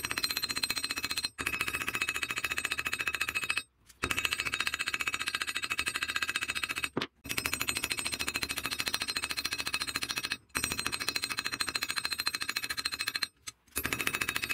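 Ball-peen hammer tapping rapidly on the metal pins of a knife's brass handle against a steel bar, peening the pins over, each strike ringing in a high metallic tone. The tapping stops briefly several times.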